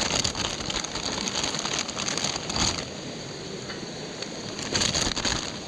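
Squid and small stream fish sizzling as they cook: a steady hiss with scattered crackles.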